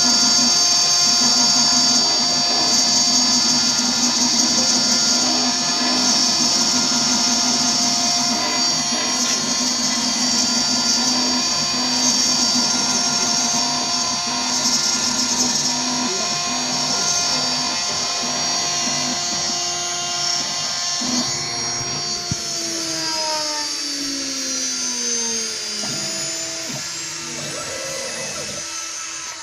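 CNC router spindle running at speed and milling a steel mold plate: a steady high whine over a gritty cutting noise. About 22 seconds in the spindle winds down, its whine falling in pitch and fading.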